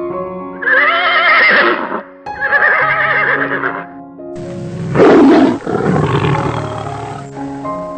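A horse neighing twice, each whinny about a second and a half long with a wavering pitch, then a loud, rough animal call of about three seconds, over background music.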